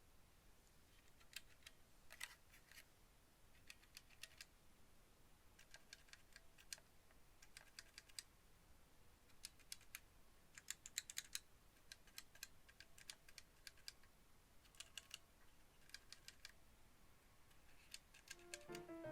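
Faint, scattered clicks in small clusters as keycaps are pulled off a WENRUI WR63 mechanical keyboard. Music starts near the end.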